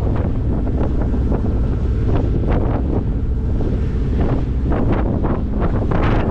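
Wind gusting against the microphone over the low, steady rumble of a ferry under way across open water.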